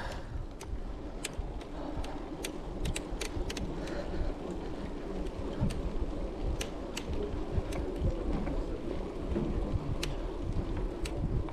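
Wind rumbling on the microphone with a steady noisy hiss, broken by scattered sharp ticks and clicks at irregular intervals.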